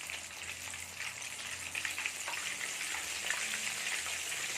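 Breaded chicken pieces deep-frying in oil heated to 350 degrees: a steady sizzle with scattered crackles and spatters, growing slightly louder.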